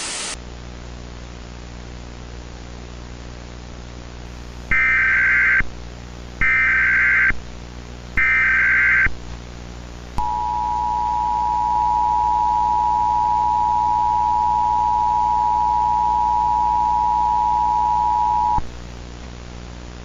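Emergency Alert System tones: three short, screechy bursts of SAME header data, then the two-tone attention signal held steady for about eight seconds. Underneath is a steady hiss and hum, with a brief burst of static at the very start.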